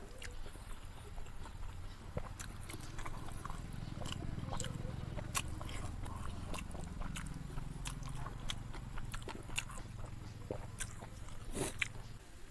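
Close-miked chewing of rice and fried small river fish, with many short wet mouth clicks and lip smacks throughout.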